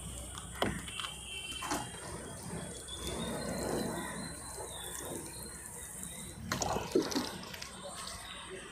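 Water sprinkling from a watering can onto a pot of sand, soaking the sand over freshly sown seeds, with a few sharp knocks near the start and near the end.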